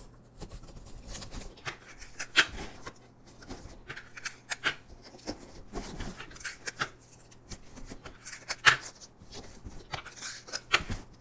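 A cardboard box being handled and turned over while sticky tape is pulled and torn: irregular rustles, scrapes and sharp crackles.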